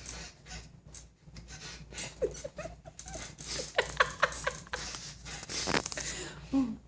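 A man with a broken rib breathing hard through the pain, with short pained cries and gasps, including a quick run of them near the middle, and a low groan near the end.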